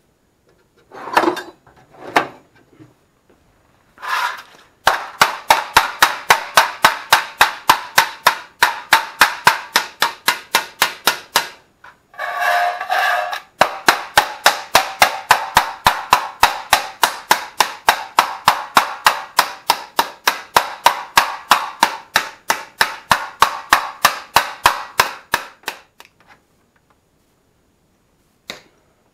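A hammer beats a sheet of aluminium flat on a concrete floor, to take the bend out of the freshly cut plates. The blows come fast and even, about three to four a second, in two long runs with a short break between, and each one rings with a sharp metallic clang.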